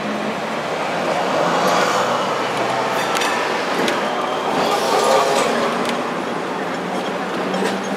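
Hong Kong double-decker tram running on its street rails, heard from on board: a steady rumble and rattle with scattered sharp clicks, growing louder twice.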